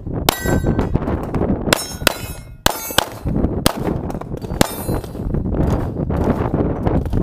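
A string of pistol shots fired at steel plates, each sharp crack followed by the clang and ring of the struck steel target, in quick, uneven succession with a short pause a little under three seconds in.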